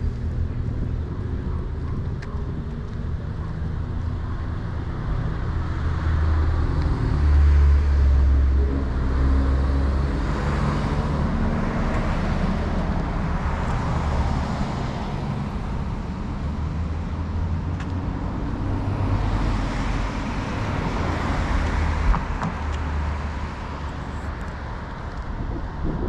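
Road traffic: cars driving past with engine rumble and tyre noise that swells and fades, loudest about eight seconds in, with another pass around twenty seconds.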